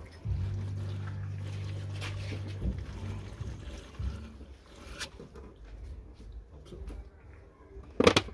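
A man blowing by mouth into a Volkswagen engine's coolant expansion tank. There is a steady low buzzing note for a couple of seconds near the start, then quieter irregular sounds, and a sharp clatter near the end.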